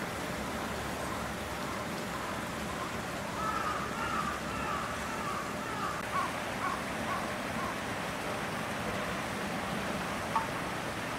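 Steady outdoor background noise, with a run of short wavering calls from about three to eight seconds in and a single sharp click near the end.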